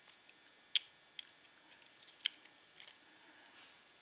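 Small metal clicks and ticks of tweezers picking pins and springs out of a disassembled Dom euro cylinder lock, a few sharp ones spread irregularly, the loudest about three-quarters of a second in and just past two seconds.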